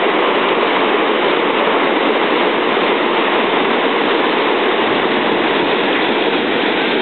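Water rushing steadily over a low river weir.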